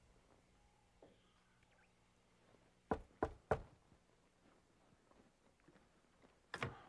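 Three quick knocks on a wooden door about three seconds in, then a louder clunk near the end as the door is unlatched and opened.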